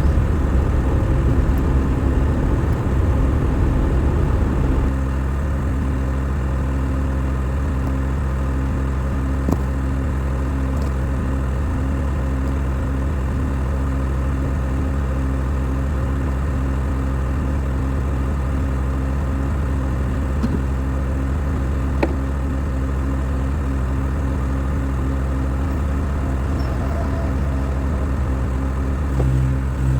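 Skid steer engine running steadily, working harder and more unevenly for the first few seconds before settling to an even speed, with a couple of faint knocks.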